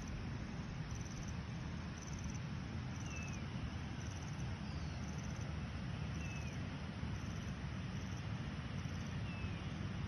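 Steady rushing noise of the river flowing, with wind on the microphone. A short, high, falling bird call sounds three times, about three seconds apart.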